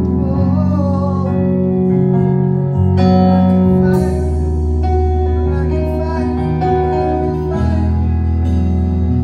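Worship band playing a slow, sustained instrumental interlude: held keyboard chords with a steady bass, a few new chords struck about three and four seconds in.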